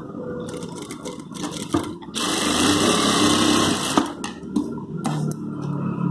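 Industrial sewing machine stitching in one short run: it starts sharply about two seconds in, runs steadily for just under two seconds and stops with a click. A few quieter clicks come before and after, and a low hum comes in near the end.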